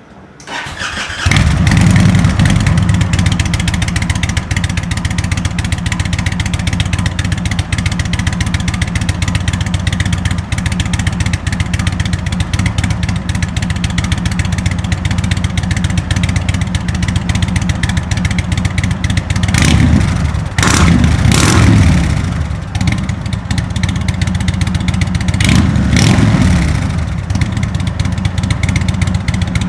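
2023 Indian Springfield Dark Horse's Thunderstroke 116 V-twin, breathing through Rinehart slip-on mufflers, starts warm about a second in and settles into a steady, loud idle. It gets a few small throttle blips about two-thirds through and one more near the end, kept gentle because the engine is still being broken in.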